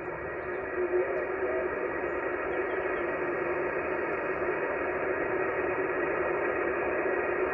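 Yaesu FT-891 transceiver tuned to the 40-meter band in SSB mode, putting out steady static hiss with no readable station. The hiss is cut off above about 3 kHz, and faint steady tones sit in it.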